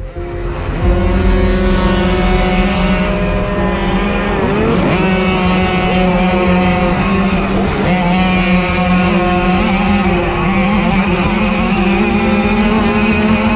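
Several tuned 49 cc two-stroke Puch Maxi mopeds racing flat out, heard from on board one of them. Their engines run at high revs and come in loud about a second in, with the pitch dipping and rising again around four to five seconds in.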